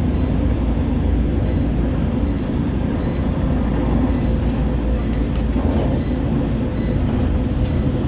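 CAF Urbos 3 tram heard from inside the passenger saloon while running between stops: a steady low rumble from the wheels on the rails and the running gear. Faint short high ticks come now and then.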